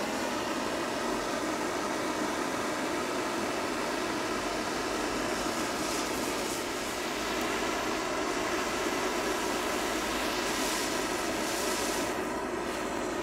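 Gas blowtorch running with a steady hiss, its flame playing on a bamboo calculator and setting the wood alight.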